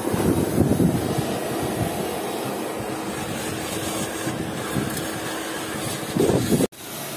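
Vacuum cleaner running steadily as its hose nozzle is worked over a car seat, with a steady hum under the rushing air. A louder rush comes near the end, then the sound drops away abruptly and carries on more quietly.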